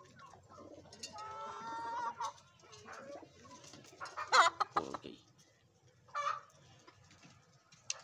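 Chickens calling: a drawn-out call about a second in, a loud, sharp sweeping call about four seconds in, and a short call just after six seconds.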